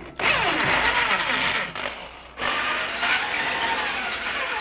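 A Black+Decker 710 W corded electric drill boring a hole into a wall for a wall plug. The motor's whine falls in pitch as it runs and slows. It stops briefly about two seconds in, then runs on.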